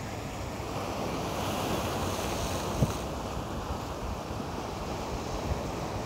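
Surf washing against the rocks at the foot of a sea cliff, with wind blowing on the microphone; the wash swells slightly about two seconds in, and there is one brief sharp knock about three seconds in.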